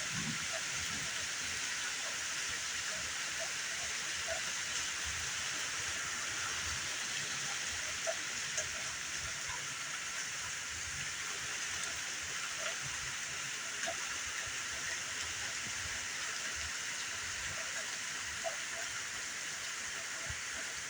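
Steady rain falling, a continuous even hiss with scattered single drops ticking now and then.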